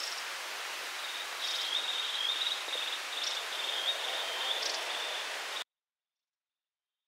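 Outdoor forest ambience: a steady hiss with an insect's high, wavering trill over it, cutting off suddenly near the end.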